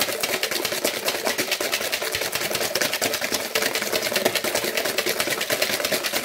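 Wire balloon whisk beating egg yolks and sugar by hand in a metal bowl, the wires clicking against the bowl in a rapid, even rhythm. The sugar is being beaten in until it dissolves.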